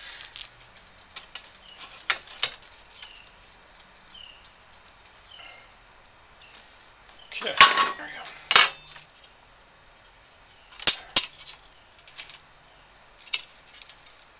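Thin stainless steel sheet clattering and clinking as it is handled and set down on a wooden workbench. The clatters come in a few separate bouts with quiet stretches between, the loudest just past halfway.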